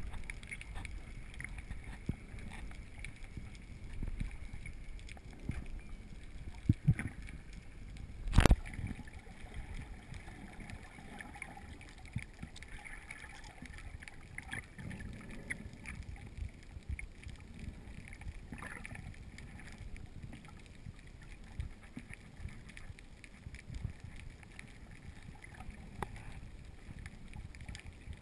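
Muffled underwater water noise heard through an action camera's waterproof housing: a steady low rumble of moving water with scattered small ticks. Two louder knocks come about seven and eight and a half seconds in.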